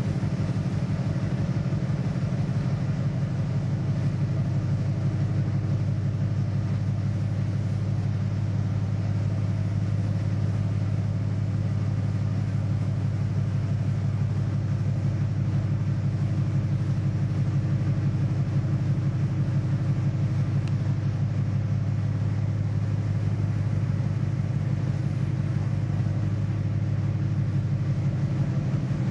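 Ship's engine running steadily with a low, even rumble that does not change pitch or level.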